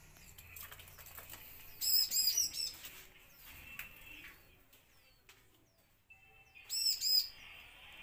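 Bar-winged prinia calling: two bursts of rapid, high-pitched chirps, about two seconds in and again near seven seconds, with faint short chirps in between.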